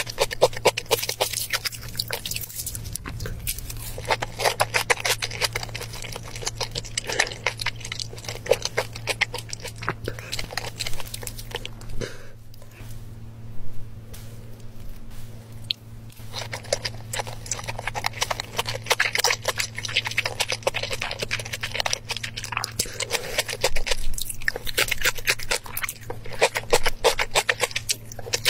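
Close-miked chewing and wet mouth sounds of someone eating soft raw tuna: clusters of small smacks and clicks, easing off for a few seconds midway, over a faint steady low hum.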